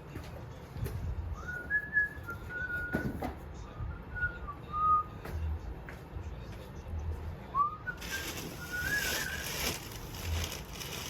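A person whistling a tune in two short phrases, with a few sharp knocks between. A steady hiss sets in near the end.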